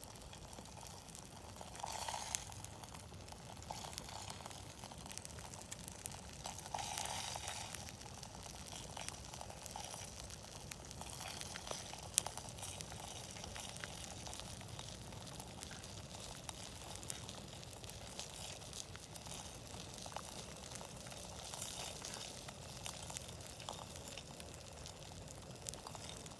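Campfire burning with a steady hiss and many small crackles, one sharp pop about twelve seconds in, and a few short louder flare-ups.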